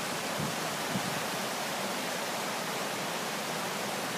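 The Sègre, a mountain river swollen with snowmelt, rushing and splashing over rocks in a steady, unbroken rush of water.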